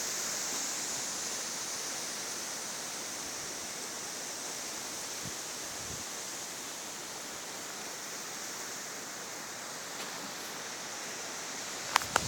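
Steady hiss of wind in an October snowstorm, easing slightly, with a sharp click near the end.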